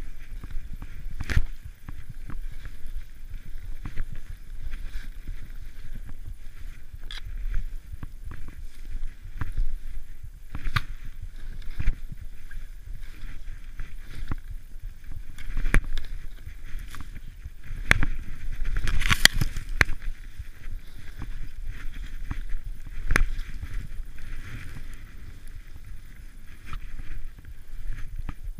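Skis running through powder snow heard through a body-mounted action camera: a steady rumble of wind and snow on the microphone, with scattered knocks, the loudest a short burst about two-thirds of the way through.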